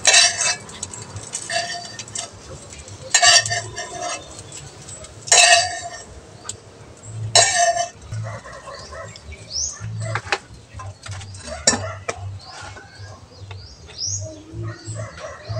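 Metal spatula scraping and clanking against a wok while okra and egg are stir-fried, in sharp bursts about every two seconds for the first eight seconds, then lighter scattered knocks.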